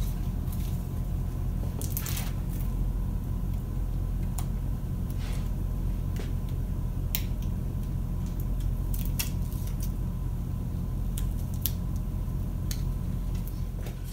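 ECG electrode pads being handled and pressed onto skin: scattered light crinkles and clicks over a steady low hum.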